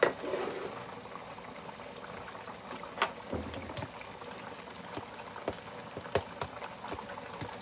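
A pot of chicken and vegetables sizzling steadily on the stove, with a few sharp knocks and taps as a plastic container is handled and tipped over the pot.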